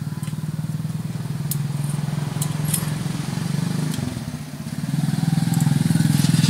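Suzuki Smash's four-stroke single-cylinder engine idling with a steady fast pulse through a welded-on scooter muffler. It sags briefly about four seconds in and picks up again. A few light metallic clicks come from pliers working at the exhaust joint.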